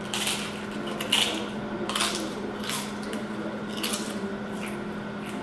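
Loud crunching of a big, thick taro chip being bitten and chewed, five or six sharp crunches about a second apart.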